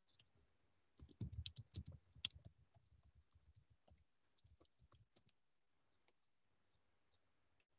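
Faint clicking and tapping on a computer keyboard. A quick flurry comes about a second in, then scattered single clicks for a few more seconds.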